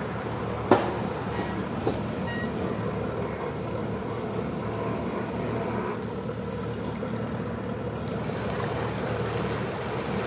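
Cabin cruiser's engine running steadily as the boat manoeuvres slowly on the river, with a sharp knock about a second in.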